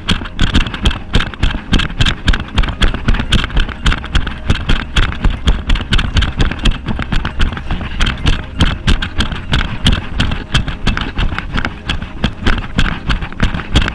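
A trail runner's footsteps on a dirt forest path, about three strides a second, each step a thud jolting the camera worn by the runner, over a steady rushing noise.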